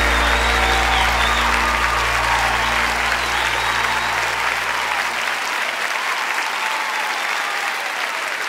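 Audience applauding at the end of a worship song while the band's last held chord rings on and fades away over about five seconds. The applause carries on after the chord has died out.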